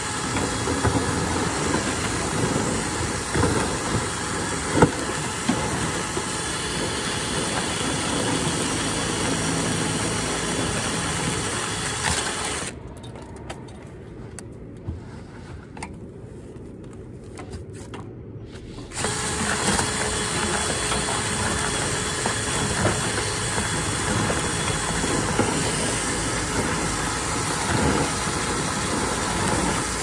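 A power drill spins a flexible dryer-vent cleaning rod and brush in the duct, giving a steady mechanical whir. About thirteen seconds in it drops away for roughly six seconds, leaving only a quieter low sound, then starts again.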